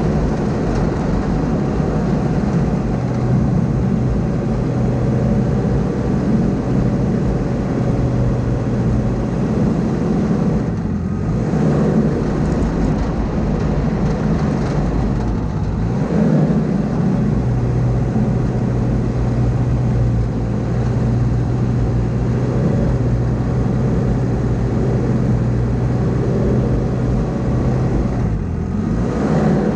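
Diesel engine of heavy earthmoving equipment running steadily under work, its note dipping briefly three times as the load changes.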